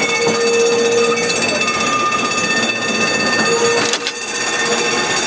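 Manx Electric Railway crossbench tramcar running along the track, heard from on board: a steady rush of wheels on rails with several steady high whining tones over it. A sharp click comes just before a brief dip in loudness about four seconds in.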